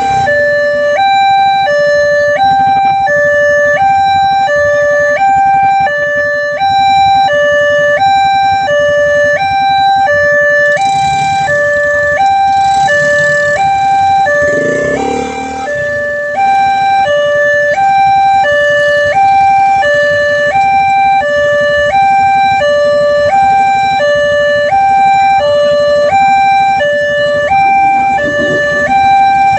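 Railway level-crossing warning siren sounding continuously, an electronic two-tone alarm that alternates evenly between a high and a low note, each held for a little under a second.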